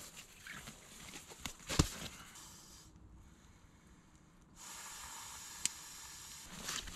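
Sleeping pad being unrolled and handled on dry leaves: fabric rustling with scattered crackles and a sharp knock about two seconds in. After a brief lull, a steady hiss for about two seconds near the end.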